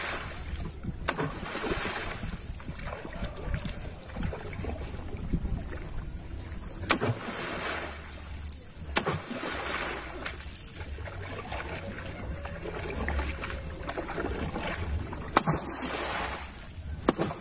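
Single-bladed paddle pulling a narrow canoe through river water, splashing in steady strokes about every two seconds, with a few sharp knocks over the splashing.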